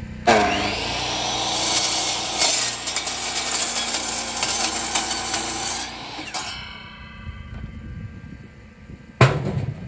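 DeWalt sliding compound miter saw starting up and cutting through a compressed sawdust brick, the blade whining and spraying dust; about six seconds in the motor is released and winds down with a fading whine. A sharp knock sounds near the end.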